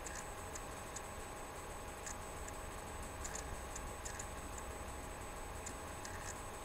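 Room tone: a steady electrical hum with faint, irregularly spaced high clicks, several a second at times.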